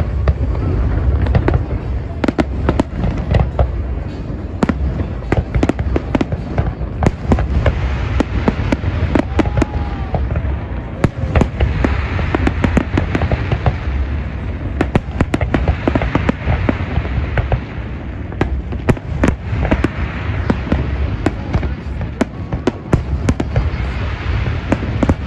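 Fireworks and firecrackers going off: a continuous run of sharp bangs and crackles over a low rumble.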